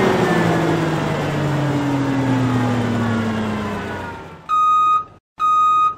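Outro sound effect: a sudden loud rush of noise with a slowly falling drone that fades out after about four seconds, followed by two steady high beeps of a vehicle reversing beeper.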